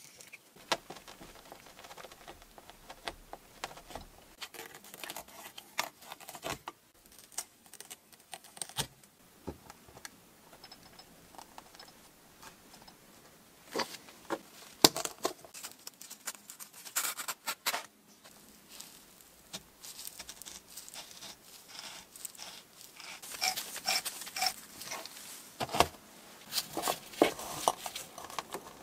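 Scattered clicks, scrapes and knocks of metal being handled: a rust-seized electric motor is clamped in a small metal vise and its stuck shaft is worked with pliers. The handling comes in bunches, busiest about halfway through and near the end.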